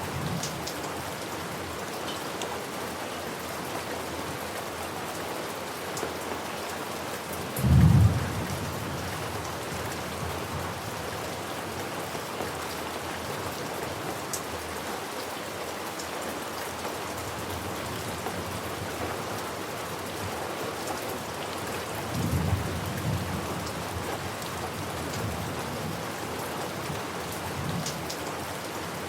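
Steady rain falling, with one loud, short clap of thunder about eight seconds in and a softer, longer rumble of thunder about two-thirds of the way through.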